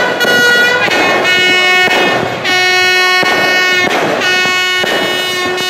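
Handheld ship's horn blown in a series of long, loud blasts, about five in a row with short breaks, the pitch dropping after the first. The last blast cuts off suddenly near the end.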